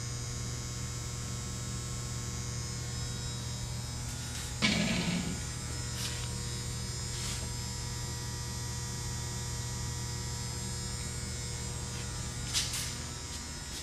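Steady electric hum and buzz of a Clausing-Colchester 13 x 36 engine lathe running. A single metallic clunk comes about four and a half seconds in, and a shorter click comes near the end.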